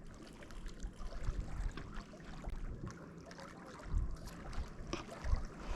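Faint lakeside water lapping, with small clicks from handling and two soft low thumps near the end.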